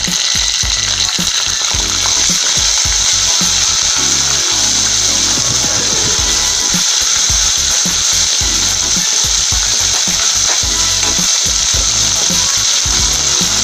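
Fresh curry leaves sizzling loudly in hot oil in a kadai alongside frying peanuts, dried red chillies and garlic, a steady hiss as the moisture in the leaves hits the oil, while a steel spoon stirs them.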